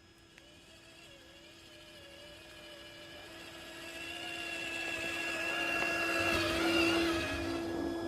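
Electric motor and gearbox of a Traxxas TRX-4 RC crawler whining as it drives, the pitch wavering with the throttle. It grows louder until about seven seconds in, then eases off a little.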